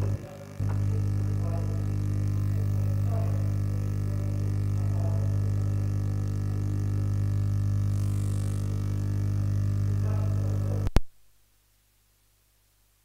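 Loud steady electrical mains hum, a buzz with many overtones, in the sound system's audio feed. It drops out for a moment near the start, then cuts off abruptly with a click about eleven seconds in, leaving near silence.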